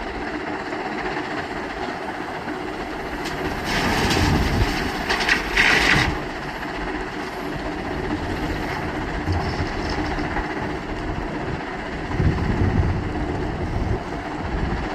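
Heavy diesel construction machinery running steadily. A loud burst of harsh rattling and grinding noise comes about four to six seconds in, and a lower surge follows near twelve seconds.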